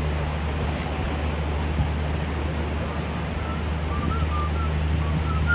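Distant steady drone of a Canadair firefighting plane's turboprop engines over surf and beach noise. From about three and a half seconds in, someone whistles a string of short notes that shift in pitch.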